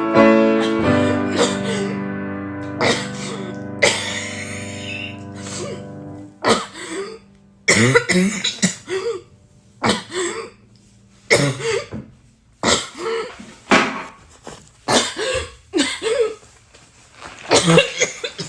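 A long run of short, sharp coughs, one or two a second. During the first six seconds or so they sound over a held musical chord, which then stops.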